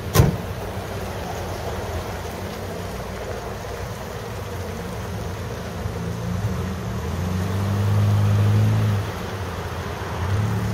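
Car engine running at low speed, its hum louder for a couple of seconds about three-quarters of the way through. There is a sharp knock just at the start.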